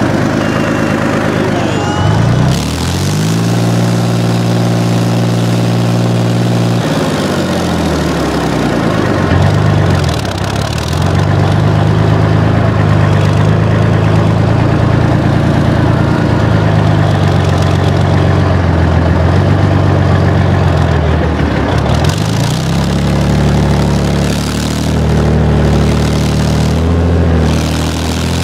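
Infantry fighting vehicle's engine running as it drives over rough, muddy ground, heard up close from on top of the hull. The engine note rises a couple of seconds in, drops around seven seconds, runs steadily, then changes pitch again near the end as the vehicle speeds up and slows.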